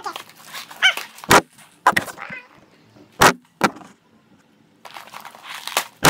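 Sharp knocks and clacks of objects being handled and set down on a table while a package is unpacked, with a few short high sliding cries near the start.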